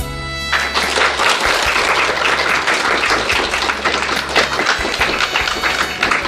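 An audience of a few dozen people applauding, starting about half a second in after a moment of background music.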